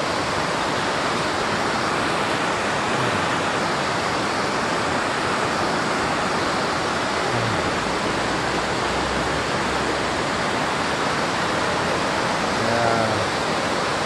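A mountain stream swollen by heavy typhoon rain, rushing over rocks and rapids: a steady, even sound of fast white water.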